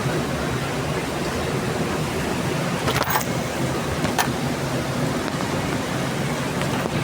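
Heavy rain falling steadily, a dense even hiss, with a couple of sharper ticks about three and four seconds in.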